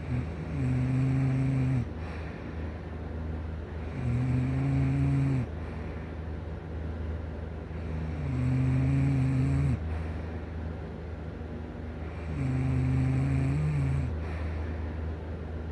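A sleeping person snoring: four snores about four seconds apart, each a low, pitched rasp lasting about a second and a half, with quieter breathing between them.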